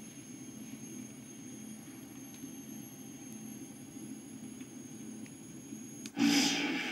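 Replica Ghostbusters proton pack's sound effects through its small speaker: a steady low electronic hum with a faint high whine, then about six seconds in a much louder effect cuts in abruptly, as the wand is worked.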